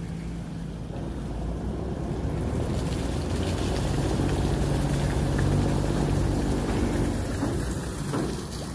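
Engine of a steel sand barge running steadily as it passes close by, a low drone that grows louder through the middle and eases off again, with water splashing from the hull near the end.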